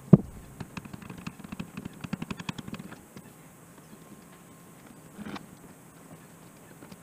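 ATV parts being handled and fitted by hand. One sharp knock, then a quick run of small clicks and rattles for about three seconds, and another knock about five seconds in.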